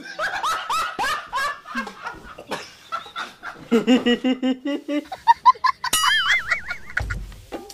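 Comedy sound effects laid over reaction shots: a string of quick, rising cluck-like calls, then a short burst of laughter. A warbling whistle follows, and a music beat with drums comes in near the end.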